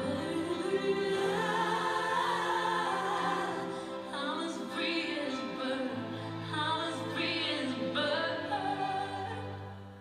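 Music: a slow song with a singing voice over sustained accompaniment, dropping in level near the end.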